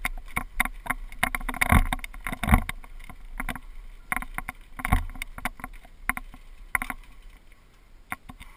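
GoPro camera mount rattling loosely, a dense run of irregular clicks and knocks, as the mountain bike rolls down a gravel track. The rattling thins out and gets quieter near the end.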